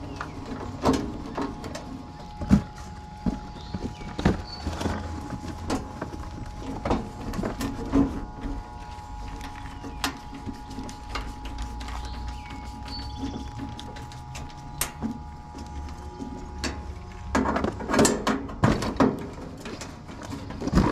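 Nut driver working the screws of a condenser unit's sheet-metal cabinet panel: scattered clicks, knocks and metal rattles, with a quick cluster of them near the end, over a faint steady hum.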